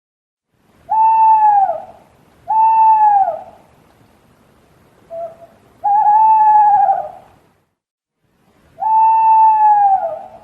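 An owl hooting: four long hoots of about a second each, each dropping a little in pitch at its end, with a short hoot just before the third.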